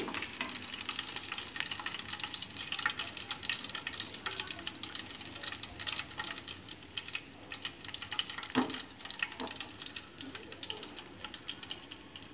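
Fish steaks frying in hot oil in a steel kadai: a steady sizzle with a dense crackle, and a slotted steel spoon clinking against the pan now and then, one sharper knock about eight and a half seconds in.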